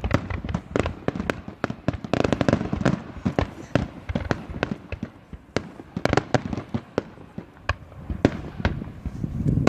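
Fireworks display going off: a fast, irregular run of sharp bangs and crackles, thickest about two seconds in, around six seconds, and near the end.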